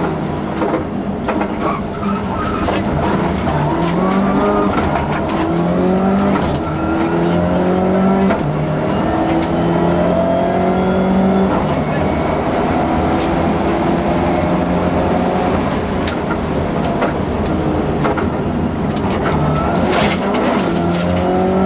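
Subaru Impreza rally car's flat-four engine, heard from inside the cabin, driven hard and shifting up through the gears: its pitch climbs in each gear and drops at each shift. Sharp clicks and knocks run throughout, with a brief cluster of them near the end.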